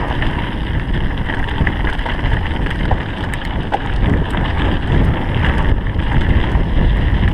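Wind buffeting an action camera's microphone on a downhill mountain bike run, mixed with the steady rumble of the tyres and the rattle of the bike over a dirt and gravel forest trail, with scattered small ticks.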